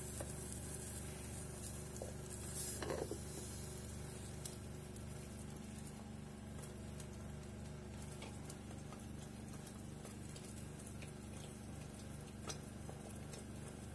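Beaten eggs frying in a covered pan on a gas burner: a faint, steady sizzle under the glass lid, with a few small ticks and a slightly louder patch of crackle about three seconds in.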